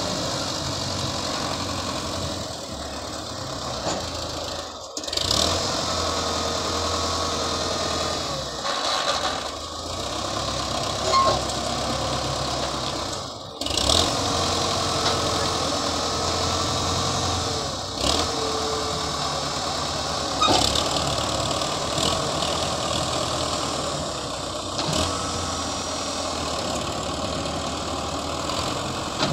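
Belarus MTZ tractor's diesel engine running as it pulls and tips a loaded soil trolley, its pitch wavering up and down with a few louder surges. The sound breaks off abruptly twice.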